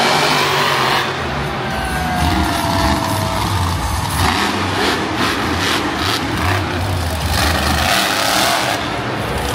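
Monster truck engines running loudly as the trucks drive across the arena floor.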